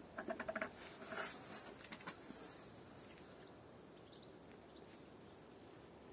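Liquid insecticide briefly gurgling as it is poured from a plastic bottle into a small measuring cup, with a light plastic knock about two seconds in. Then faint outdoor background with a few faint high bird chirps.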